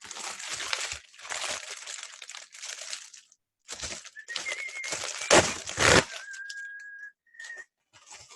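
Shipping package being torn open and its wrapping crinkled and crumpled, with two sharper, louder crunches near the middle. Toward the end a steady high tone holds for about a second, followed by a brief shorter one.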